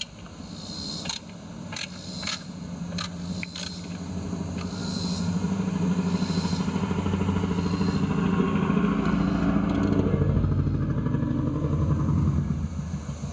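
A motor vehicle's engine passing by: it builds over several seconds, holds, then eases off near the end. A few sharp clicks sound in the first few seconds.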